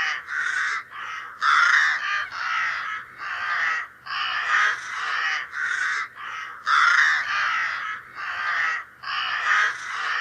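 Crow cawing over and over: harsh, rasping caws about two a second, with hardly a break between them.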